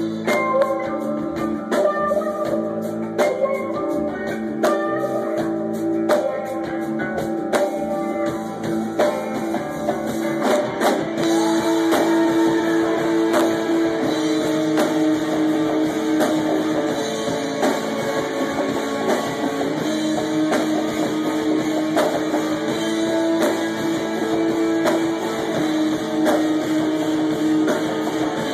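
Live rock band playing: electric guitar and bass guitar over a drum kit. The playing turns fuller, with held notes, about eleven seconds in.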